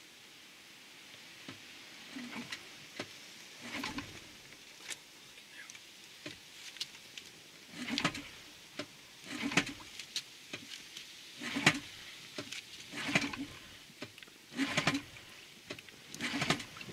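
Recoil starter of a Parsun 40 hp two-stroke outboard being pulled again and again, about one pull every one to two seconds, each a short whirr as the engine turns over without catching. It is a cold start after the engine has sat unused for months.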